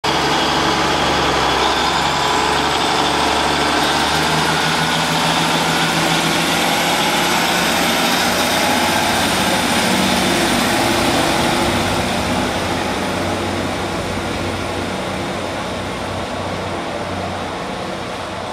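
Northern Rail diesel multiple unit's underfloor engines working hard as the train pulls out, with a high whine climbing in pitch. The sound fades over the last several seconds as the train draws away.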